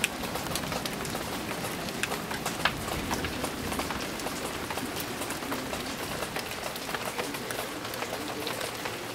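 Steady rain falling: a constant hiss with many sharp drop ticks hitting nearby surfaces.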